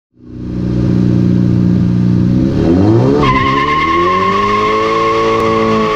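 Car engine running and revving up about two and a half seconds in, followed by a steady high-pitched tire squeal over the engine.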